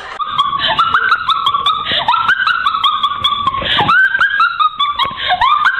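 A rapid run of loud, high-pitched whining cries, each sliding up and then down in pitch, with sharp clicks scattered among them; they stop just after the end.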